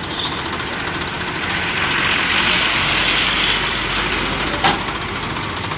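Sonalika DI 50 RX tractor's diesel engine running steadily with its trailer tipped to unload sand. The noise swells for a couple of seconds in the middle, and a single sharp knock comes near the end.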